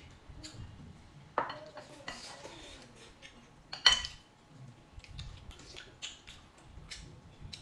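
Chopsticks clicking against ceramic bowls and plates during a meal, in scattered light knocks. The loudest sound is a single sharp clink with a short ring about four seconds in, as a drinking glass is set down on the table.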